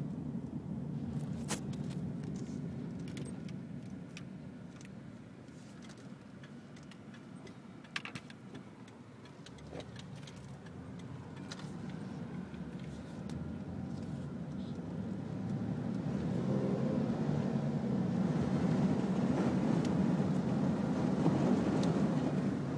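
Car driving, its low rumble broken by scattered small clicks and rattles. From about two-thirds of the way through, a steady rushing noise builds and is loudest near the end, as the car pushes through flood water.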